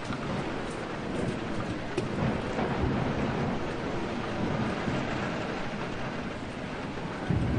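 Steady rain falling with low rolling thunder. The thunder swells about two seconds in and again, louder, just before the end.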